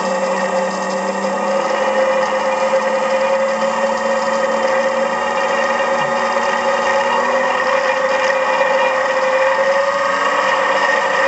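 Electric motor run from a 0.75 kW variable-frequency drive, whirring steadily as the frequency is turned up towards 50 Hz, its pitch rising slowly.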